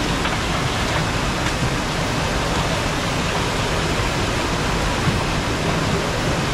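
Steady, even rushing noise with no pauses or distinct events.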